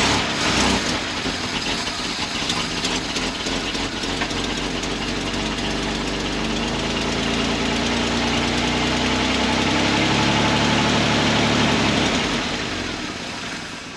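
1968 GMC C4500 dump truck's V6 engine running after a restart, uneven at first, then steadier with its pitch rising slightly, before fading and dying out near the end. The truck has been stalling at all engine speeds.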